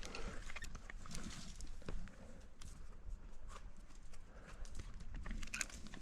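Irregular clicks and knocks of a rock climber's gear and shoes against the rock, with a low rumble underneath.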